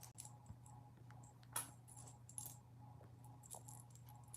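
Near silence: quiet room tone with a steady low hum and a few faint, light clicks and taps. The clearest tap comes about a second and a half in.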